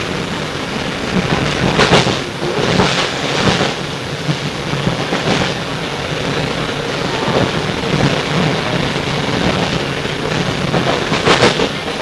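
Sydney R set double-deck electric train running along the line, heard from inside the carriage: a steady rumble of wheels on rail with a few sharp knocks at uneven intervals.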